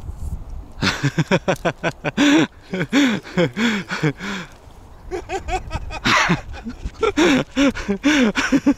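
A person's voice in quick, short, pitched bursts, not clear words, over low wind rumble.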